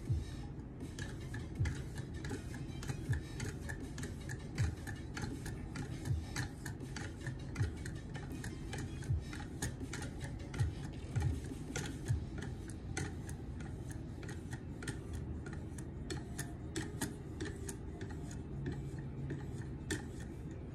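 A KME guided sharpener's stone carrier with oiled abrasive film being stroked back and forth along a knife edge. The strokes make small scraping clicks, with a low knock about every second and a half.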